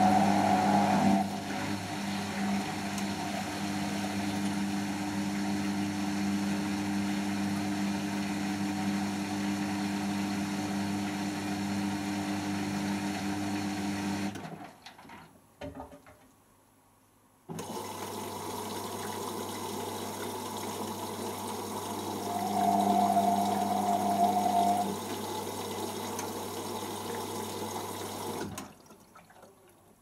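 Beko WMP511 front-loading washing machine moving water between the main wash and the first low-level rinse. A steady hum with running water cuts off suddenly about halfway through. After about three seconds of near silence it starts again abruptly as the rinse begins, grows louder for a couple of seconds, and stops shortly before the end.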